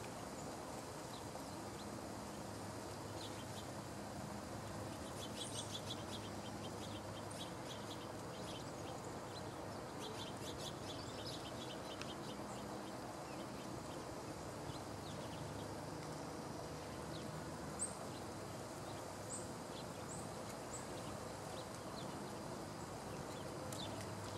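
Small songbirds calling over a steady outdoor hiss: runs of quick, high ticking notes in the first half, then a few thin, very high chirps later, one louder than the rest.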